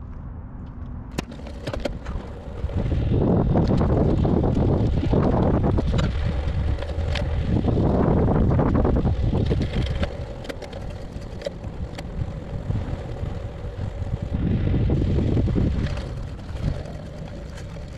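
Wind buffeting the microphone of a road bike rider's camera, rising and falling in loud swells, over the rumble of tyres on asphalt, with a few light clicks.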